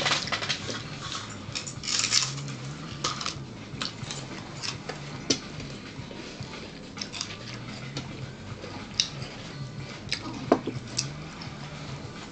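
Tableware clinking and tapping while people eat: scattered short clicks of cutlery against dishes, with a brief rustle about two seconds in.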